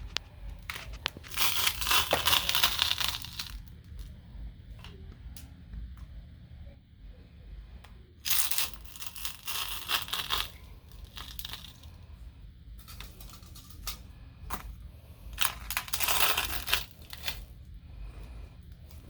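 Platform high heels crushing something brittle underfoot: three bursts of crackling and crunching several seconds apart, with single sharp clicks and taps between them.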